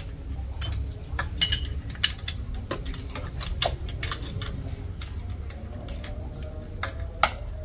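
Hand tools working on a dismantled engine: irregular sharp metal clicks and clinks of wrenches and ratchets against the engine's fittings and bolts, over a low steady rumble.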